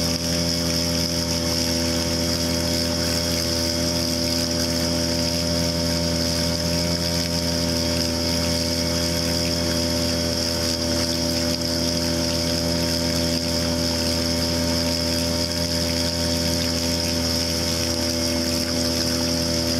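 Gamefisher 3.0 hp two-stroke outboard motor running at a steady speed, pushing the boat along with an unchanging pitch.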